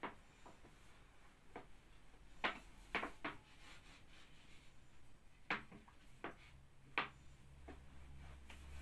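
Long thin wooden rolling pin (oklava) rolling starch-dusted baklava dough sheets on a wooden board: the starch squeaks and crunches under the pin in a scattering of short sharp clicks and taps, about ten in all. A low hum comes in near the end.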